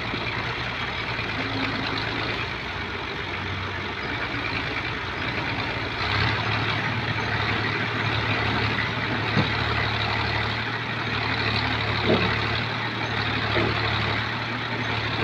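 Fiat 480 Special tractor's diesel engine running under load as it tries to drive its rear wheels out of deep mud; the engine note grows louder and heavier about six seconds in.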